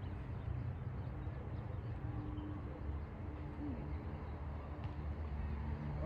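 Wind buffeting the microphone: a steady, uneven low rumble.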